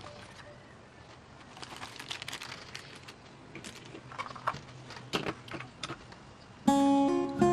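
Clear plastic zip-lock bag crinkling and rustling in the hands, with scattered small clicks as it is set down and a plastic box is handled. Near the end, guitar music starts and is much louder.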